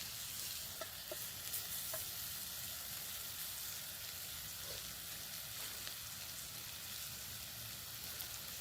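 Food frying in a pan, a steady sizzle, with a few faint short chirps about a second in and again near the middle.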